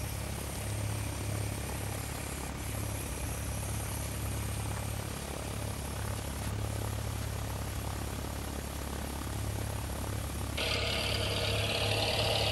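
Small electric motors of a Lego Mindstorms model airplane running steadily, spinning its propeller. Near the end, a brighter hissing sound starts abruptly.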